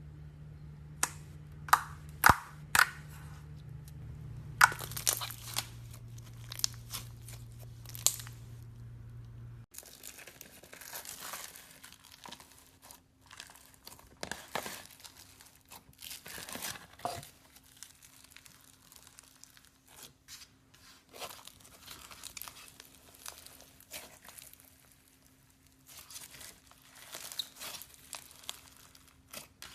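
Slime being played with by hand: sharp, loud pops and snaps in the first third, then crackling, crunching squishes for the rest.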